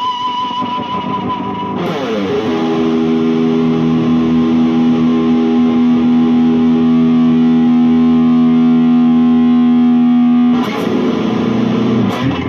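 IYV ILP 400 electric guitar with a Floyd Rose tremolo, played through effects with light distortion: a high note with wavering vibrato drops in pitch about two seconds in, settles into a long sustained low note, and wobbles in pitch near the end.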